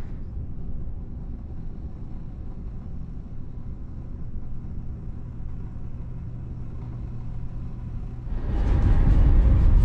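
Low, steady hum and rumble of a large car ferry's machinery heard from inside the ship. About eight seconds in, a louder, wider rumble takes over.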